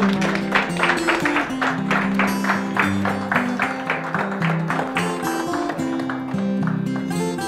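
Background guitar music with a fast, even strummed rhythm.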